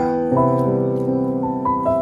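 Background piano music: a slow melody of single struck notes, each left to ring and fade.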